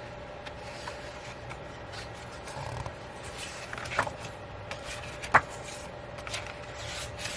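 Hands handling a CD album package and its paper inserts and photo cards: soft rubbing and scraping of paper and card, with two sharp taps about four and five and a half seconds in.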